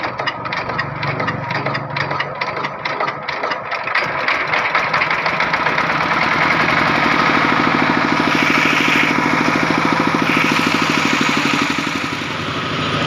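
An engine running, pulsing rapidly for the first few seconds and then settling into a steadier, denser drone.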